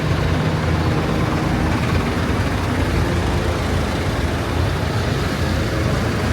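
Diesel engines of JCB backhoe loaders running steadily, a low even hum.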